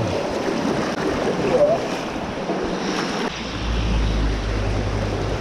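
Steady rush of a running creek, with wind on the microphone adding a low rumble from about two-thirds of the way in.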